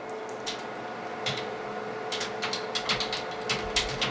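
Keys clicking on a computer keyboard: a few taps at first, then quick typing from about two seconds in, over a steady low hum.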